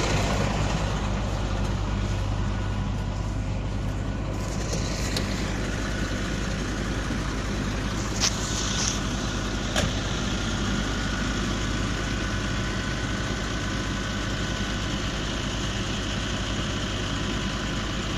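Heavy diesel engine idling steadily, with a short hiss about eight seconds in and a sharp click a little later.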